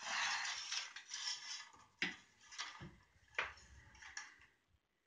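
Handling noise as a wooden model-railway board is turned over by hand: a rustling scrape for about a second and a half, then several light knocks and clicks as it is set down and settled.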